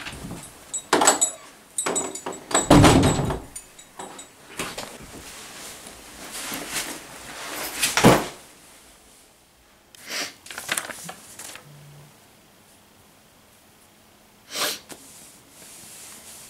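An interior bedroom door opening and shutting, with a run of loud thumps and knocks in the first few seconds. After that come quieter knocks and rustles as a person sits down on a bed.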